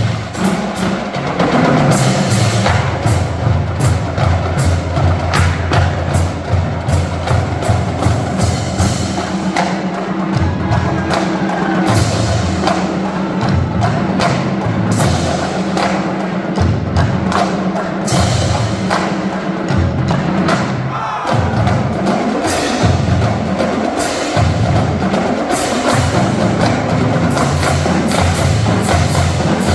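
Marching drumline playing a fast cadence: rapid snare and tenor drum strikes over a pattern of pitched bass drum notes that step up and down.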